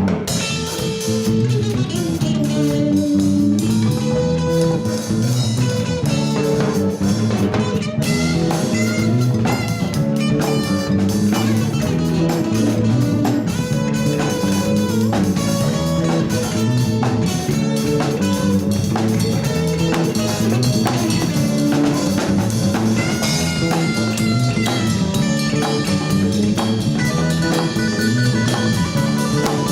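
Latin fusion band playing a song with a steady beat.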